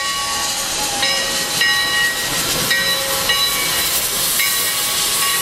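Steam locomotive Sierra Railway No. 3, a 4-6-0, passing close by with a steady hiss of steam, crossed by short high squeals that come and go every second or so.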